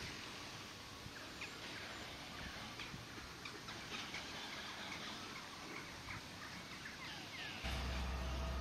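Faint birdsong: many short chirps and whistles from several small birds. A low steady rumble sets in near the end.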